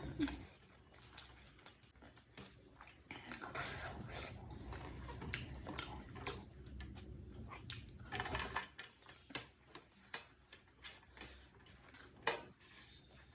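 Close-miked chewing and eating of chicken biryani, with many small wet mouth clicks and a couple of longer, louder noisy stretches about three and eight seconds in.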